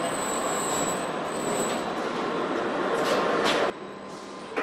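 Steady machinery noise on a car assembly line, with a couple of brief high hisses about three seconds in; the noise drops abruptly to a quieter level near the end.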